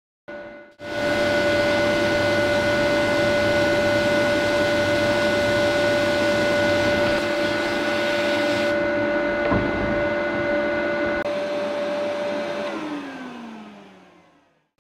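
Blast cabinet in use on a motorcycle fuel tank: the steady hiss of the abrasive blast with the hum of the cabinet's extractor motor. The blast hiss cuts off about nine seconds in. Then the motor winds down with a falling whine and fades out.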